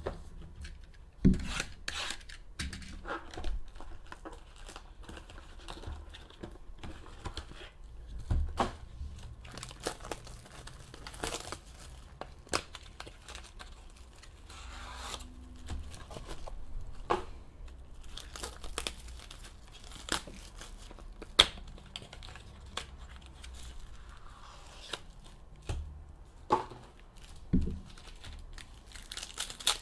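Panini Select basketball card pack wrappers being torn open and crinkled, and the cards handled, with scattered sharp snaps and clicks. The loudest is a single sharp snap about two-thirds of the way through.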